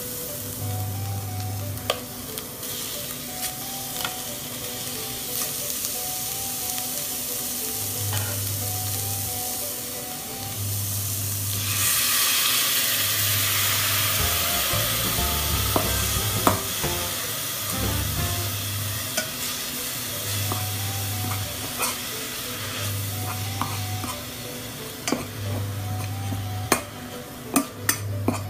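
Lemongrass paste frying in oil in a stainless steel pot while a metal spoon stirs it, scraping and now and then clicking against the pot. Near the middle the sizzle grows louder for a few seconds as more ingredients go into the pot. A low hum switches on and off every couple of seconds.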